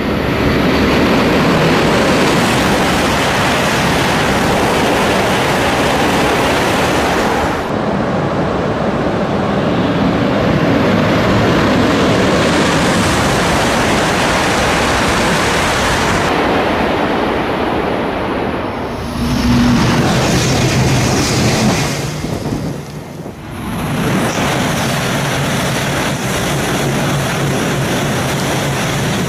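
E5-series Shinkansen bullet trains passing through stations at high speed, one pass after another: a loud, steady rush of air and rail noise that changes abruptly at several cuts, with a low hum under the later passes.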